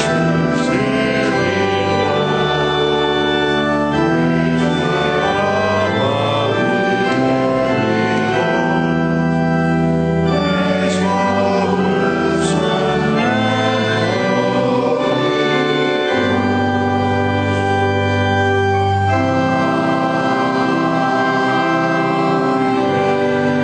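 Organ music played in slow, sustained chords that change every second or two.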